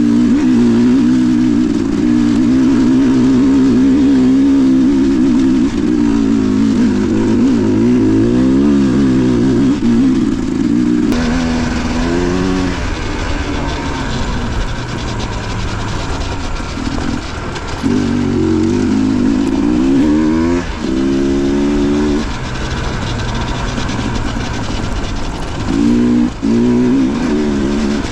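Dirt bike engine running under way, its pitch rising and falling again and again as the throttle is worked and the bike shifts through gears, with several quick rev-ups in the second half. From about eleven seconds in, wind noise on the microphone rises.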